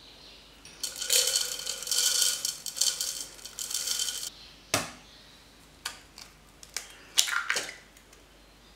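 Dry rolled oats poured into a plastic blender beaker, a dense rattling patter lasting about three seconds. Then a sharp knock and a run of light clicks and taps as an egg is cracked and added.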